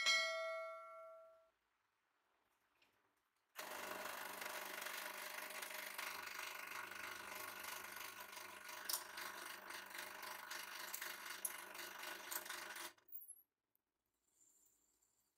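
A metal pipe rings briefly once, a clear ringing note that dies away. Then the hydraulic press runs steadily with a low hum for about nine seconds as its pointed ram drives into and crushes the pipe, with a couple of sharp metallic cracks along the way, and stops suddenly.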